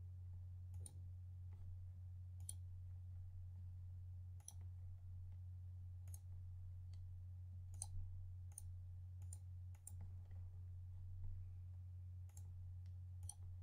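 Computer mouse clicking, about ten short sharp clicks at uneven intervals, as plugin checkboxes are ticked one after another. A steady low hum runs underneath.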